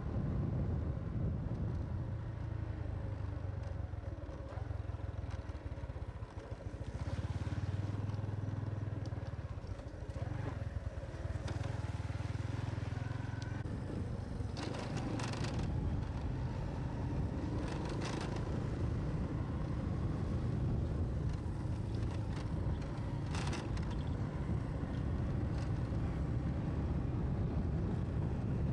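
Motorcycle engine running under a steady low rumble of wind on the microphone, with a few short knocks and rattles through the middle, as from bumps on a rough dirt track.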